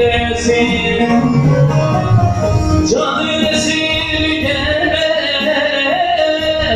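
Turkish folk music played live on a bağlama (long-necked saz) with a Korg arranger keyboard accompanying. About three seconds in, a male voice takes up a long held, wavering sung note over the instruments.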